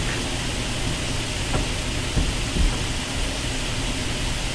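Steady hiss of room and recording noise, with a few soft low thumps about two seconds in.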